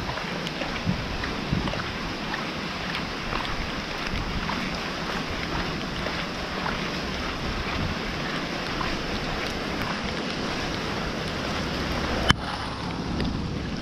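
Steady rainfall: a dense hiss of falling rain with many small scattered drop ticks. A single sharp click sounds near the end.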